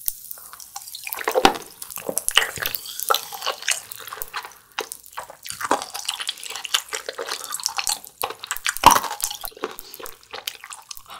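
Close-miked chewing and wet mouth sounds: irregular clicks and smacks, with a louder pop about 1.5 s in and another near 9 s.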